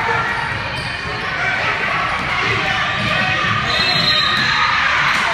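Basketballs bouncing on a hardwood gym floor, with the steady chatter of many voices around in a large gym hall.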